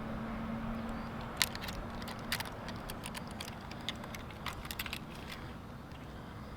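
Irregular light clicks and small rattles, a dozen or so spread over a few seconds, from fishing gear being handled.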